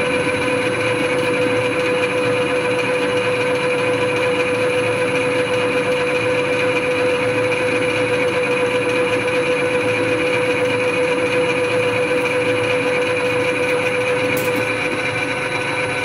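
Metal lathe running in back gear, a steady gear whine over the noise of a knife tool taking a facing cut across the end of a spinning hexagonal bar.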